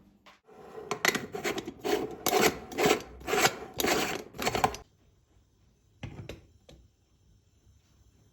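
A run of rasping, rubbing strokes, about two a second for roughly four seconds, followed by a brief softer scrape.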